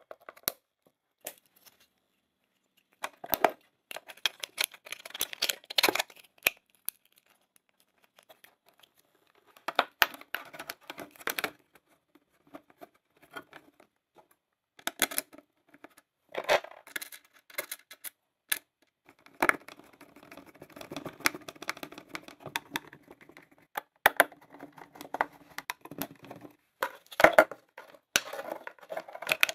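Close-up hand-work sounds: scattered scrapes, clicks and rustling in bursts with short pauses between, and a longer stretch of steadier scraping a little past the middle.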